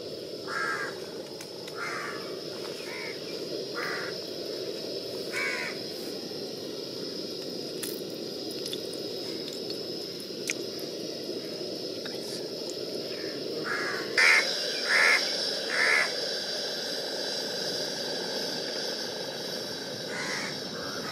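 Crows cawing, a series of short harsh caws in small groups, loudest in a run of three about two-thirds of the way through, over a steady background hiss.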